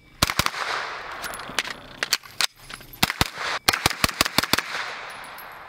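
CZ Scorpion EVO 3 S1 9mm carbine fired in quick semi-automatic strings: a few shots at the start, scattered single shots, then a fast run of about seven shots, each crack followed by echo.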